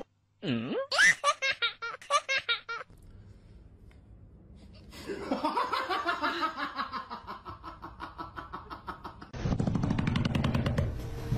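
People laughing in rapid rhythmic bursts, first briefly and then in a longer, falling run of laughter about halfway through. A steady low sound starts abruptly near the end.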